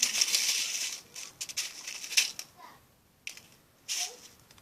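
Slime being squished and poked by hand: wet crackling and clicking pops, a dense burst in the first second, then scattered sharp clicks and another short burst near the end.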